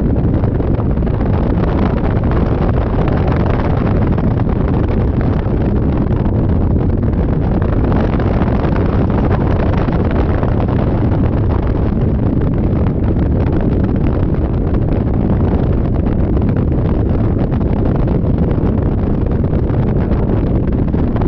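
Loud, steady wind rush buffeting the microphone, as heard riding at speed on a Yamaha Majesty 400 scooter.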